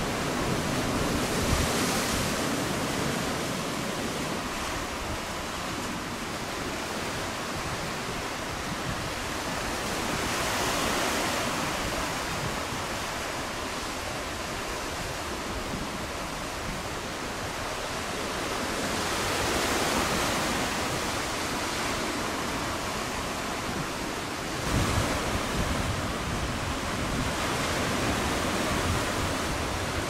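Sea surf breaking on a rocky shore: a continuous wash of noise that swells and ebbs roughly every nine seconds as the waves come in. A short gust of wind on the microphone rumbles near the end.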